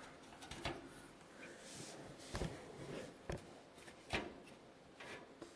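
A few faint clicks and knocks from a hard drive cage being handled in a computer case, the loudest about four seconds in.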